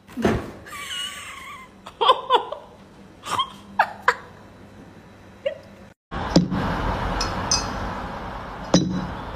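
Domestic cat chirping and chattering: a wavering call, then several short, falling chirps. From about six seconds in, a steady rushing noise with a few knocks takes over.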